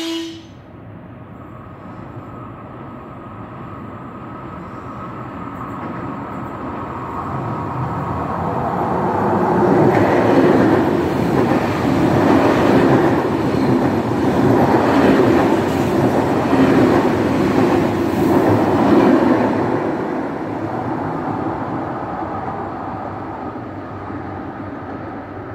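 High-speed electric train passing through the station. The running noise builds, holds loud in the middle with a steady clatter of wheels over the rail joints, then fades as the train moves away.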